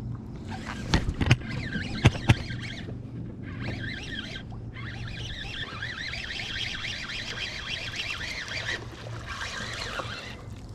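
Birds calling and chattering over a steady low hum, with a few sharp knocks in the first couple of seconds.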